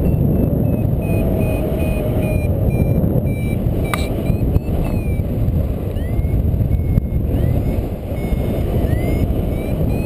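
Wind rushing over the microphone in flight under a paraglider, with a paragliding variometer beeping in short high pulses whose pitch shifts, several sliding upward, the tone a vario gives when climbing. A sharp click about four seconds in.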